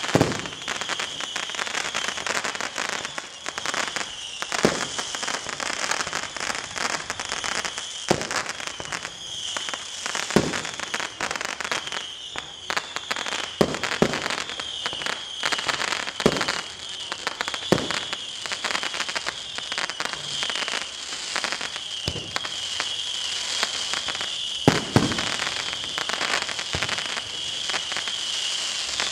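Fireworks going off continuously: dense crackling with a heavier bang every second or two, over a steady high whine.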